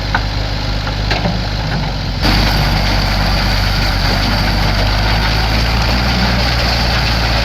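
Massey Harris Super 101 tractor and New Idea T-6 square baler running steadily; about two seconds in the sound steps up and stays louder and fuller.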